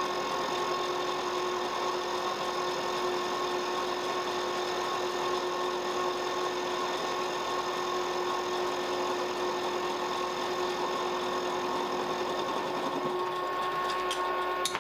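Milling machine running with a steady whine as its 10 mm end mill takes a 1 mm-deep cut in mild steel.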